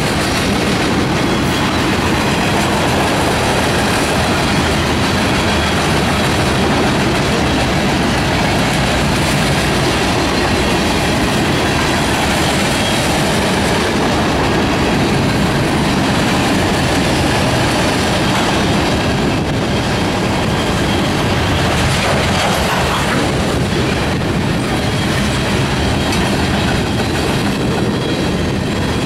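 Freight cars of a long mixed train passing close by: a loud, steady rolling noise of steel wheels on the rails, with the clatter of the wheels over the track.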